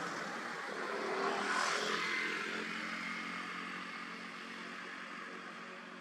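A distant engine passing by, swelling to its loudest about one and a half seconds in and then fading away.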